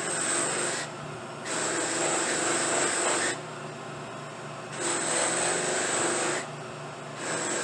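A briar pipe is pressed against a spinning buffing wheel on a motor-driven buffer, buffing its dyed finish. There are four bouts of rubbing hiss, each a second or two long, and between them the buffer motor hums steadily when the pipe is lifted off.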